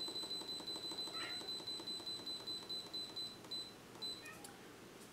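Instant Pot Duo Nova electric pressure cooker beeping in a fast, unbroken run as its button is held to scroll the pressure-cook time down to 6 minutes. The run ends with two short single beeps about four seconds in.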